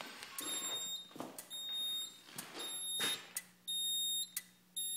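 Edwards EST2 fire alarm panel's piezo beeper sounding a high-pitched beep about once a second, each beep about half a second long. The panel is in a trouble state and its silence buttons do not stop it. A couple of faint knocks fall between the beeps.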